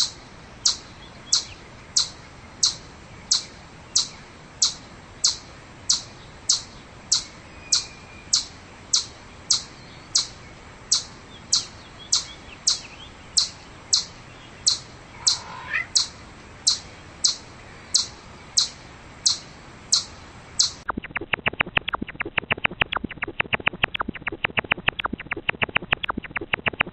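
Eastern chipmunk chip calls: a sharp, high chip repeated steadily about one and a half times a second. About 21 seconds in it changes to a faster run of chips, several a second.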